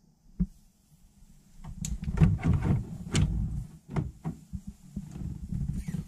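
Handling noise: rubbing, scraping and knocking of a phone and hands against the plastic fender liner and parts in a cramped engine bay. It is mostly quiet with one knock at first, then a rustling rumble with irregular clicks and knocks from about a second and a half in.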